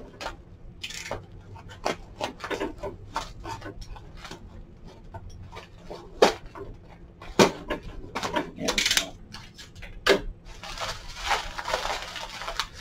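Paper and tape wrapping being peeled and unwound from a packed item, rustling and crinkling, with scattered small clicks and knocks as it is handled; a few sharper clicks stand out around the middle.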